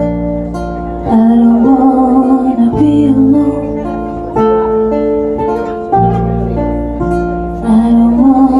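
Live song for acoustic guitar, electric bass and female voice: guitar and bass notes ring throughout, and a woman's singing comes in about a second in and again near the end.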